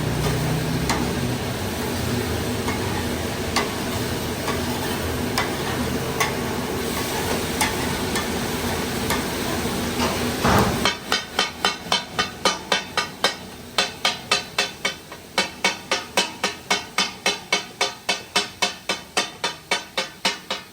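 Food-stall cooking noise: frying sizzle with scattered clinks of metal utensils. About halfway through it cuts off abruptly into a fast, even percussive beat of about four hits a second.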